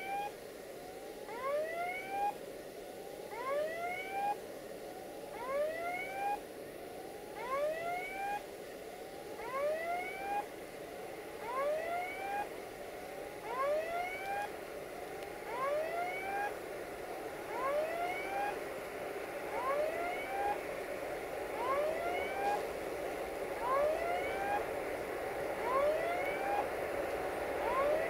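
Level crossing's electronic warning sounder sounding a short rising tone about once a second. Underneath, the rumble of an approaching Sulzer-engined 060-DA (LDE2100) diesel locomotive grows louder toward the end.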